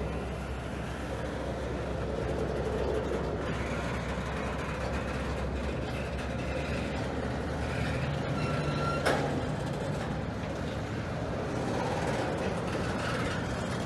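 Norfolk Southern double-stack intermodal freight train rolling past at close range: a steady rumble and clatter of the well cars' wheels on the rails. A brief squeal and then a single sharp knock come about nine seconds in.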